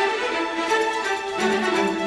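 Background music played on bowed strings, led by a violin melody, with lower string notes joining about one and a half seconds in.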